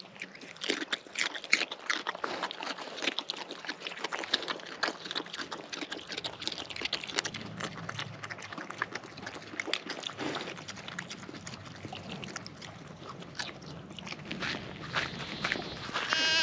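Kunekune pigs chewing fruit and salad scraps: a steady run of wet crunches and clicks. Near the end a goat bleats once, a loud, wavering call.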